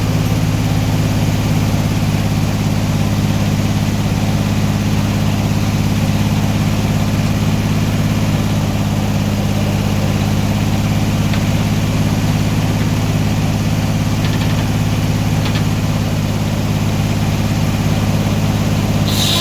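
Sawmill engine running at a steady high speed held by a homemade governor, its pitch not wavering. Near the very end the engine speed falls away.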